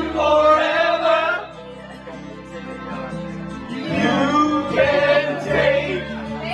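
Karaoke singing into a microphone over a backing track. The voices stop about a second and a half in, leaving only the quieter backing track, and come back about four seconds in.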